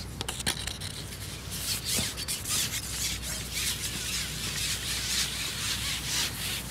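Carbon fishing pole being shipped out, its sections sliding and rubbing in a run of short scraping strokes, with a few sharp clicks in the first half second.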